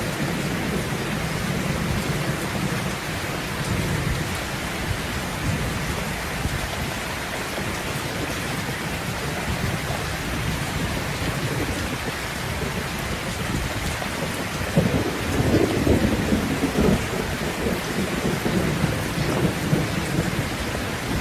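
Steady heavy rain falling, with rolling thunder rumbling low. The thunder swells louder about fifteen seconds in.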